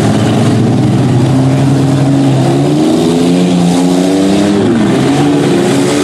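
Several minivan engines running and revving together in a demolition derby heat, their pitches rising and falling as the vans accelerate and back off.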